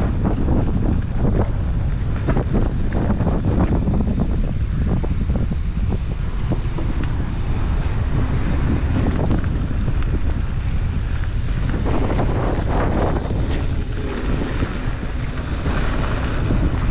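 Wind buffeting the microphone of a camera on a mountain bike riding fast down a dirt flow trail, under a steady rumble from the tyres and many quick knocks and rattles from the bike over bumps.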